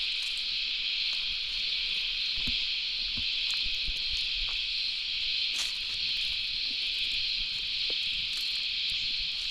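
Steady, unbroken chorus of cicadas, an even high-pitched shrill drone that holds its level throughout.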